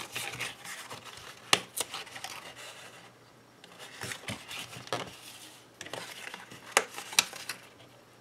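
Kraft cardboard box being folded and handled: the card rustles and rubs as its flaps and tabs are bent into place, with a few sharp snaps and taps.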